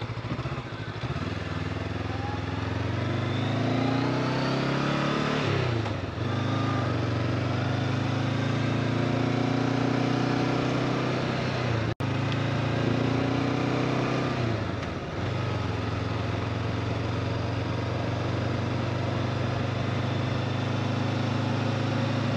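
Honda CB500X motorcycle's parallel-twin engine under way, rising in pitch over the first few seconds, dropping at a gear change about five seconds in, then running at a steady cruise with another brief drop around the middle of the ride. Wind and road noise run underneath.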